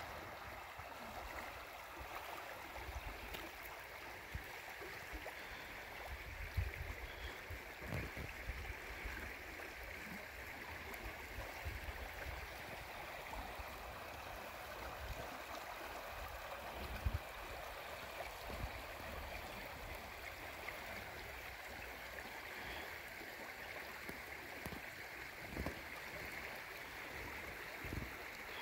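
River water flowing over shallow riffles: a steady rushing and gurgling of current, with a few brief low thumps on the microphone.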